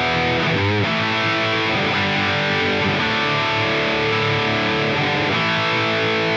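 Heavily distorted electric guitar played through the Line 6 Pod Go's Diezel high-gain amp simulation, with no effects added. It plays sustained notes, with a bent, wavering note a little under a second in.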